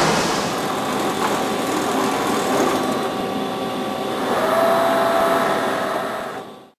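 Matsuura horizontal CNC machining centre running, a steady mechanical hum with several held tones. A clearer steady tone joins about four seconds in, and the sound cuts off just before the end.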